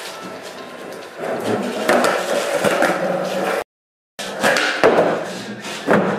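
Skateboard wheels rolling and the board clacking and slapping on plywood and concrete, a run of sharp knocks over a rolling rumble. The sound cuts out completely for about half a second partway through, then more rolling and clacks follow.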